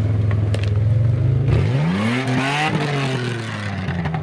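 Mud-covered Mitsubishi Pajero 4x4 driving past close by, its engine running steadily, then revving up about halfway through and easing off as it pulls away.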